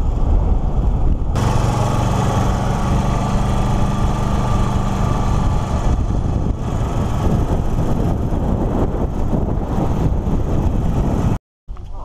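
Vehicle engine running, with road and wind noise, heard from a camera mounted low on a moving vehicle. A steady low engine drone with a clear pitch stands out from about one to five seconds in, and the sound cuts off abruptly near the end.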